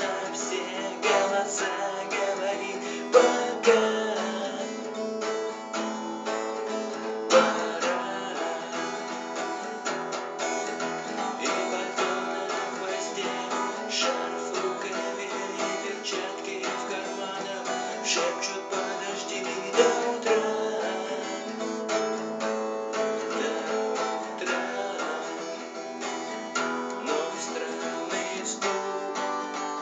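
Acoustic guitar strummed in a steady rhythm, playing chords through an instrumental passage, with a few sharper strokes standing out.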